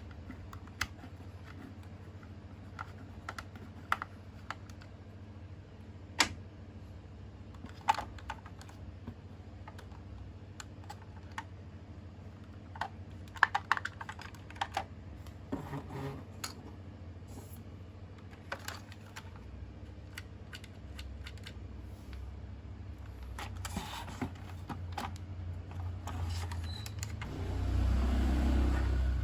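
Irregular light clicks and taps of plastic being handled, from toy parts and packaging. A louder low rumble builds near the end.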